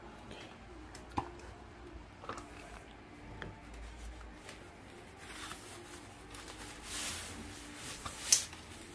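Unboxing handling noise. A few light clicks and taps from packaging come first, then a wheel bag is rustled for a few seconds. Near the end there is one sharp click, the loudest sound.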